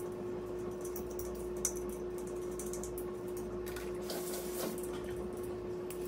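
Faint sink-side washing sounds as a small humidifier part is scrubbed with a little brush, with a few brief hissy scrubbing strokes and a click, over a steady low hum.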